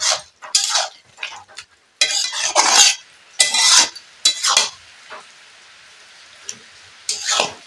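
Metal spatula scraping and stirring a thick vegetable mix in a metal kadai, in irregular strokes. Between about five and seven seconds the strokes stop and only a faint steady sizzle of the simmering dish is left, before one more scrape near the end.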